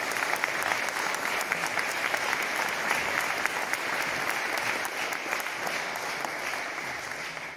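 Audience applauding: dense, steady clapping from a large crowd that fades near the end.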